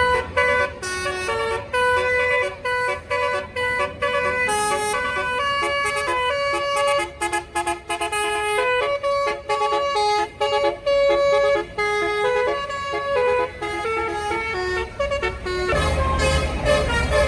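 Bus telolet horn, a multi-tone Basuri horn, playing a fast tune of short notes that jump quickly from pitch to pitch. About sixteen seconds in, a louder rush of noise rises beneath the notes as the horn keeps playing.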